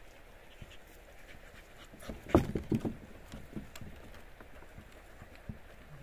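A dog panting close by, with a quick run of knocks and thuds on the wooden bridge planks about two seconds in.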